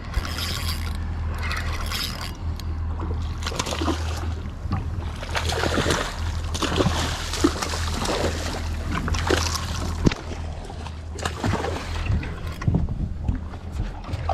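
A hooked mahi-mahi splashing and thrashing at the surface beside the boat while a spinning reel is cranked, loudest about halfway through. A steady low hum runs underneath.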